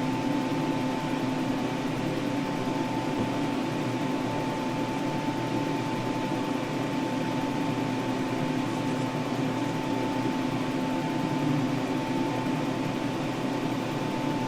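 Steady hum of a small electric motor, even and unbroken, with a constant high whine over it.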